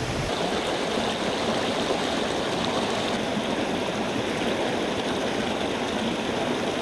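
Rushing water of a woodland river and its waterfalls, a steady, even sound.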